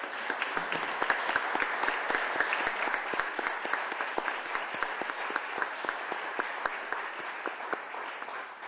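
Audience applauding: a sustained round of many hands clapping that slowly dies down near the end.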